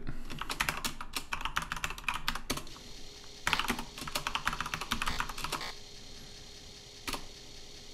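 Typing on a computer keyboard: quick runs of key clicks in two bursts over the first six seconds, then a lone key press near the end.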